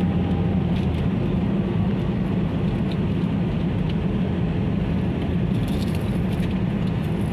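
Steady road and engine noise of a moving car, heard inside its cabin.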